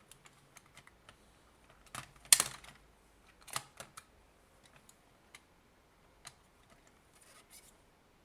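Small clicks and clacks of a JAKEMY JM-Z13 phone screen opening tool being handled and adjusted, its plastic and steel parts knocking together. The loudest clatter comes about two seconds in, with another a second and a half later.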